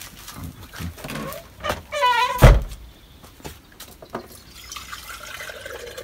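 A short animal call about two seconds in, a heavy thud just after it, then water running steadily into a container from near the end.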